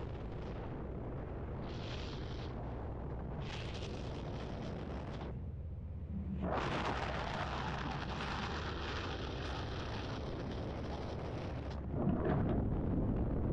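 Wind rushing and buffeting over a helmet-mounted camera microphone during a parachute descent at altitude. A steady roaring hiss that grows louder about halfway through and again near the end.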